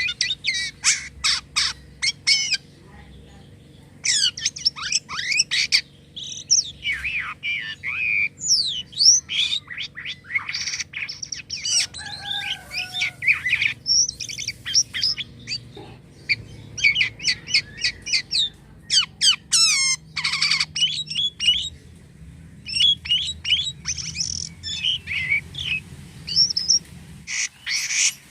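Jalak kapas starling singing vigorously: fast runs of chirps, whistles, rattles and harsh squawks in bursts, with a couple of short pauses.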